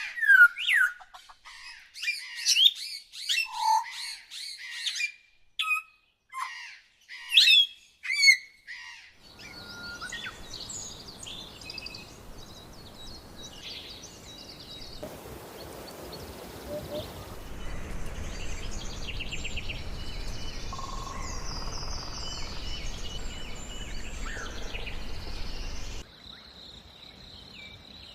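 Songbirds chirping: for about the first nine seconds, clear, sharp, quickly falling chirps with short gaps between them. After that, fainter bird calls over a steady low rumble and hiss. Near the end, a steady high insect trill takes over.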